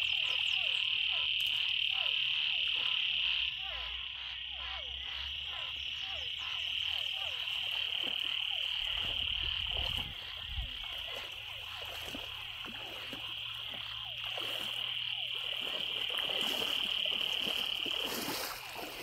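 A dense chorus of frogs calling over a pond filled by heavy rain: a continuous high trill with many short, falling calls repeated over it. Water sloshes around the middle and again near the end as someone wades through it.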